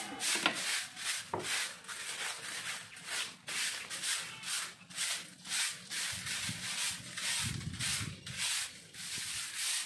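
A soft grass broom sweeping a bare concrete floor in quick, even strokes, about three swishes a second.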